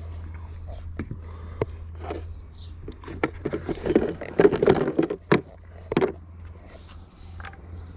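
Scattered clicks, knocks and rustling of tools and a compression gauge kit being handled, loudest about halfway through, over a steady low hum.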